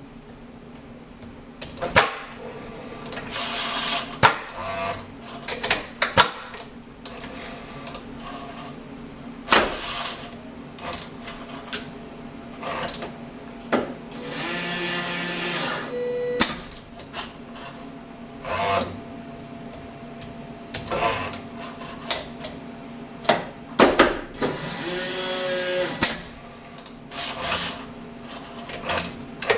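Torus PRO milling machine's automatic tool changer cycling with its power drawbar, over a steady machine hum. Repeated sharp clunks and clicks sound as tools are released and clamped. Two hissing air blasts of about two seconds each come from the pneumatic drawbar, one about halfway through and one near the end.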